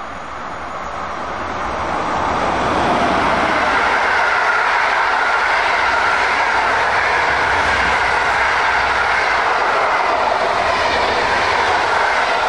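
A locomotive-hauled passenger train's coaches run past at close range, their wheels running on the track. The sound builds over the first couple of seconds, then holds loud and steady.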